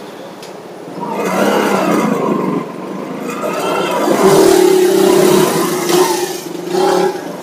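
Motor traffic on a busy city road: vehicle engines running and revving past, getting louder about a second in. A steady held tone sounds for about a second midway.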